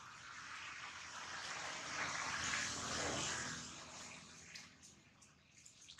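A rushing, hiss-like noise that swells about two seconds in and fades out, with a few faint clicks near the end.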